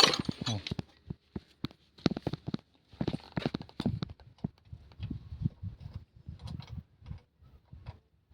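Irregular clicks and light knocks of hand tools on metal during work on a truck's fuel injection lines.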